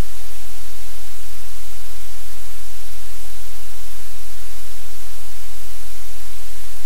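Loud, steady static hiss with a low electrical hum beneath it, unchanging throughout.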